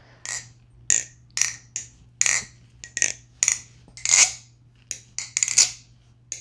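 MachineWise Mayrn Lite balisong being flipped: a quick, irregular run of sharp metallic clacks as its aluminium handles swing round and strike each other and the pins, a dozen or so strikes.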